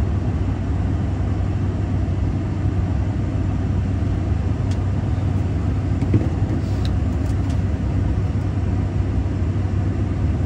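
Steady low rumble and hum of airliner noise heard inside the cockpit, with a few faint clicks in the second half.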